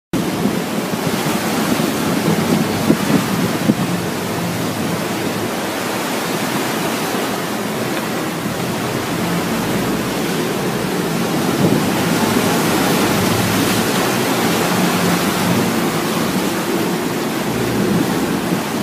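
Steady wind buffeting the microphone over the rush of open-sea water on a moving fishing boat.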